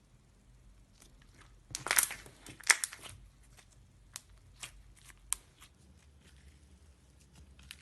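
Slime being pressed and worked by hand, giving a dense run of crackling pops about two seconds in, followed by a few sharp single clicks.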